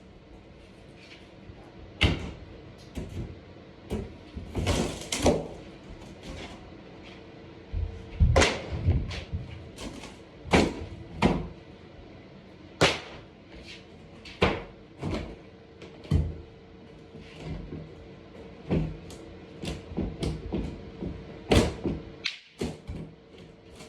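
Irregular bangs and thuds of interior wall demolition: wall material being struck and torn out, pieces knocking and falling, with a faint steady hum underneath.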